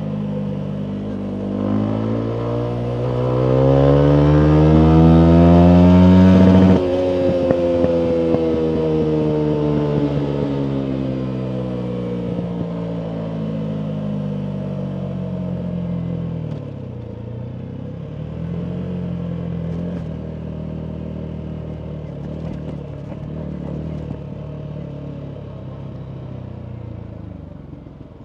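Yamaha MT125's single-cylinder engine through a full Akrapovic exhaust, revving up hard under acceleration, then the throttle shuts abruptly about seven seconds in. The revs wind down slowly on the overrun with a few faint crackles and a short blip partway, settling lower and quieter near the end.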